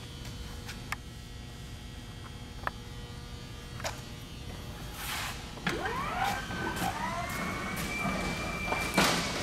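Hyster electric walk-behind pallet jack's motor starting up about halfway through: a whine that rises in pitch over about a second, then holds steady as the truck travels. A few sharp clicks come before it, and there is a loud clack near the end.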